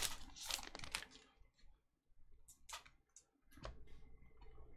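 Trading cards being handled and flicked through by hand: a scattering of faint sharp clicks and snaps as the card edges slide past one another, after a brief crinkle from the torn foil pack wrapper at the start.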